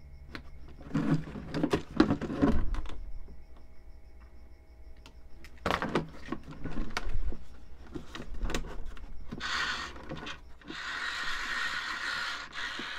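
Clicks and knocks of plastic parts being handled, then a cable tie ratcheting as it is pulled tight, in two long rasping pulls over the last few seconds.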